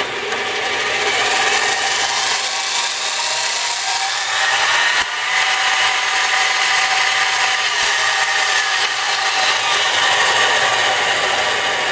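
Enco 7x10 variable-speed mini bench lathe running in forward, a steady motor whine and gear noise whose pitch shifts around the middle as the speed is brought up to high.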